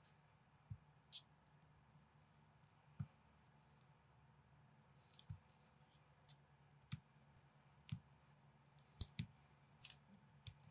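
Small plastic LEGO-compatible bricks clicking as they are pressed and snapped together by hand. About a dozen sharp clicks come at irregular intervals, with a loud close pair near the end, over a faint steady hum.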